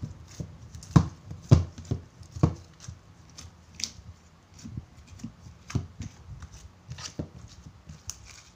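White glue slime, activated but still sticky, being kneaded and pressed by hand against a tabletop: irregular sticky clicks and soft slaps, the loudest three in the first few seconds.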